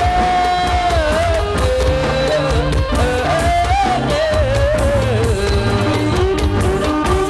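Likay band music: a single wavering, ornamented melody line that slides between notes over a steady bass beat.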